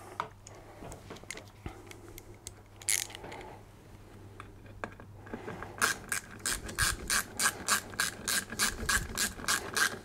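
Hand ratchet clicking as Torx bolts are run back in, a steady run of clicks starting about six seconds in, after a few seconds of faint handling noise.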